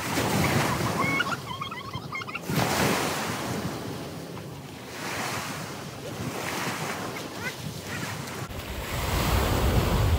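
Small waves breaking on a sand beach, the surf swelling and washing back every couple of seconds. Wind buffets the microphone with a low rumble in the last couple of seconds.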